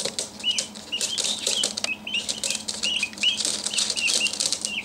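A group of chicks peeping, several short rising-and-falling peeps a second, over many light clicking taps from their feet on a hard floor.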